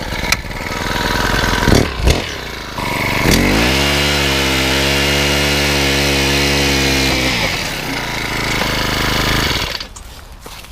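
Powered ice auger drilling a hole through lake ice. The motor spins up a little over three seconds in, runs steadily under load, then stops near the end.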